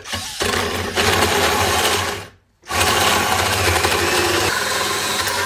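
Power drill with a hole saw cutting through the sheet-metal muffler cover of a chainsaw, opening up the exhaust outlet for a muffler mod. It cuts for about two seconds, stops briefly, then cuts again for about three seconds.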